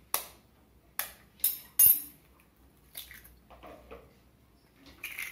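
Eggs being cracked open against metal over a stainless steel bowl: a few sharp clinking taps in the first two seconds, the loudest with a brief metallic ring, then softer handling sounds as the shells are pulled apart.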